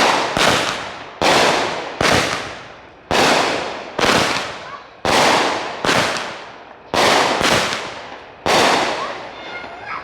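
Fireworks going off in a rapid series, a sharp bang about once a second, each one trailing off over most of a second before the next.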